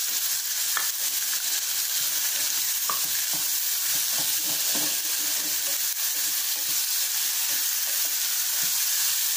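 Chopped green beans, carrot and onion sizzling in hot oil in a pressure cooker pan while a spatula stirs and scrapes through them. It is a steady sizzle under irregular scraping, with a couple of light taps.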